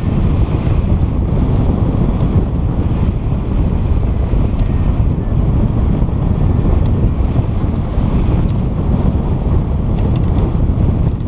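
Strong wind buffeting the microphone: a loud, steady rumble with no let-up, with a few faint clicks in the second half.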